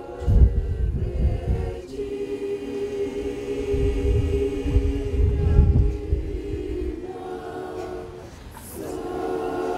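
Choir singing a cappella in long held chords, breaking off briefly near the end before starting a new phrase. Irregular low rumbles sound underneath at times.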